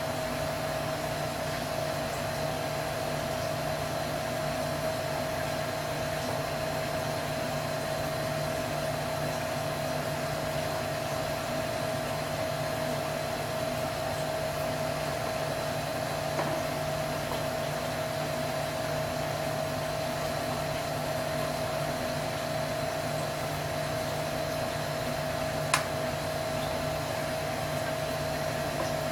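Steady whir of a small motor or fan running, with a constant hum in it; one sharp click near the end.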